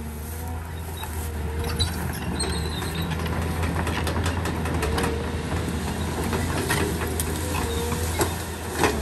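Caterpillar tracked excavator's diesel engine running steadily under load, with a wavering hydraulic whine as the boom pushes into bushes. Branches snap and crack repeatedly through the second half, loudest just before the end.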